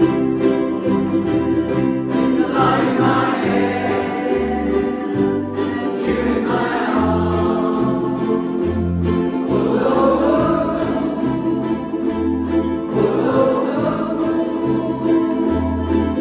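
Live band playing: strummed acoustic string instruments over a bass line that changes note about once a second, with a wavering, sliding melody line coming in about two and a half seconds in.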